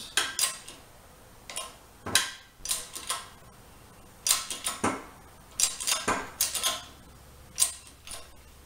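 Hand-pumped 20-ton hydraulic bottle jack on a shop press: the steel pump handle clinks and rattles in short irregular bursts with the pump strokes as the press drives a new wheel bearing into its hub.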